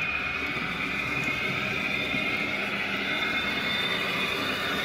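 HO-scale Märklin model freight train running past on metal track, the wagons' wheels making a steady rolling rumble and whir.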